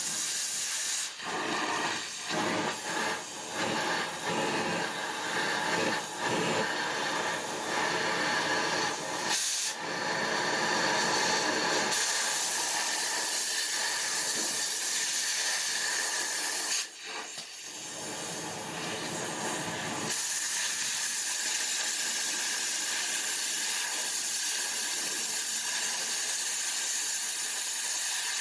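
A loud, steady hiss like a jet of gas or air, choppy with many short breaks at first, then mostly continuous with one brief drop about two-thirds of the way through.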